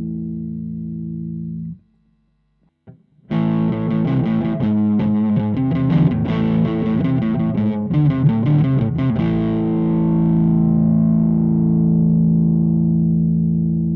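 Overdriven electric guitar: a Telecaster on its Lace Sensor Blue neck pickup through a Vox AC10 amp. A held distorted chord stops about two seconds in, and after a short silence distorted chords are strummed for about six seconds, ending on a chord left ringing. The part after the silence is recorded on a T.Bone RB 770 ribbon microphone, the part before it on a Shure SM57.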